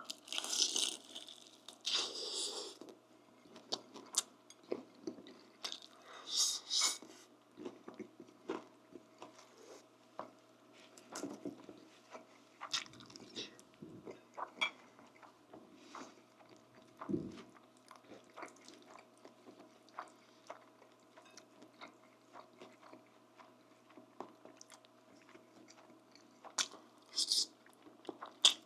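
Close-miked eating: chewing and biting with wet mouth clicks and smacks, and a few sharper crunchy bites, the loudest in the first few seconds, at about six and a half seconds and near the end.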